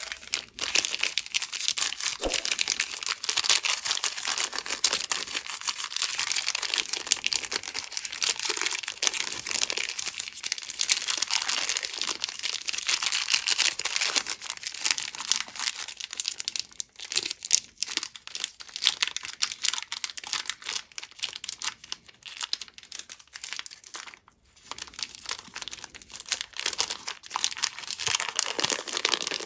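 Candy wrappers and packaging being crinkled and torn open by hand, a dense, continuous crackle with short pauses about two-thirds and four-fifths of the way through.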